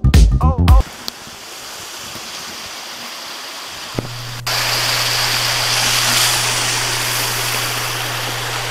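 Background music ends within the first second; then a mountain stream rushes steadily, louder after a click about four seconds in, with a low steady hum beneath.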